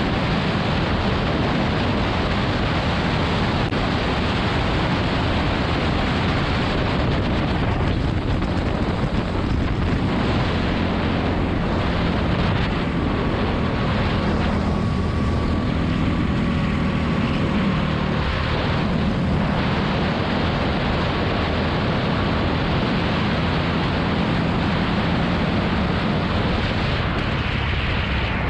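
Onboard go-kart sound: the kart's engine running on track, largely buried under wind rushing over the camera's microphone.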